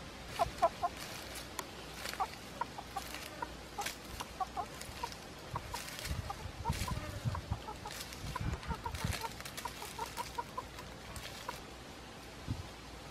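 Red junglefowl rooster clucking: a long run of short, quick clucks, some in fast pairs, that stops about two seconds before the end. Low thumps and rustling come up around the middle.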